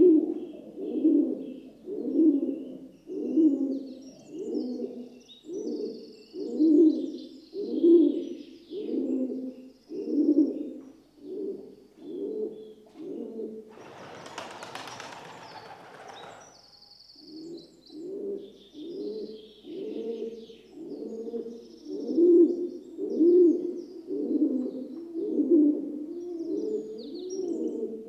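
Rock dove (pigeon) cooing over and over, about one coo a second, with other small birds chirping faintly. About halfway through, the cooing stops for a few seconds while a rushing noise takes over, then resumes.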